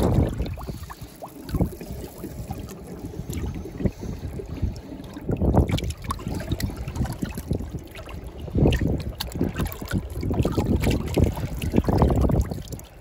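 Sea water splashing and sloshing in irregular surges as a ray is held by hand at the surface beside a boat so it can be released.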